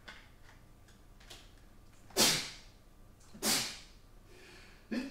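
A man coughing twice, two loud, short coughs about a second and a half apart, after a few faint clicks.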